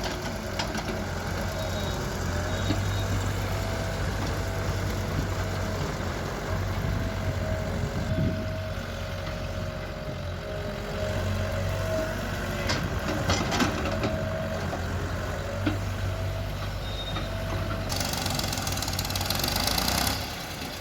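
Diesel engines of a JCB 3DX backhoe loader and tractors running steadily, with a few sharp knocks in the middle. Near the end a loud hissing rush lasts about two seconds.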